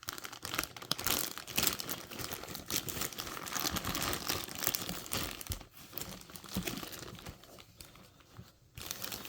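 A bag crinkling and rustling as it is opened and handled and items are pulled out of it. The rustling thins out and goes quieter near the end.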